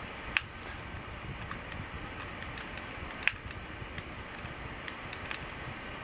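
Small clicks and taps from handling a hard drive and its optical-bay drive caddy as the drive is seated. Two sharper clicks come, one just after the start and one about halfway through, over a steady low hiss.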